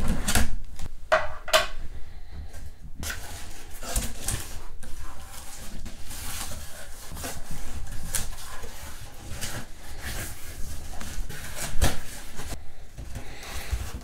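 A cardboard shipping box being opened by hand: cardboard flaps pulled back and scraping, with scattered knocks and rustles as an inner box is handled inside it.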